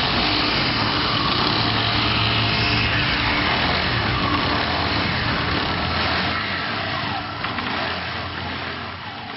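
Small scooter engine running steadily, easing down in level over the last couple of seconds.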